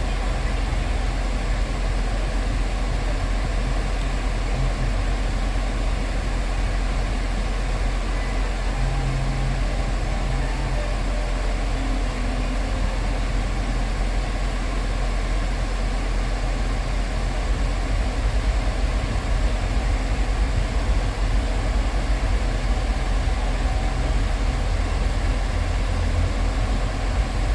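Kia Niro Hybrid running with its air conditioning on after a refrigerant recharge: a steady low drone like an idling engine, with no change.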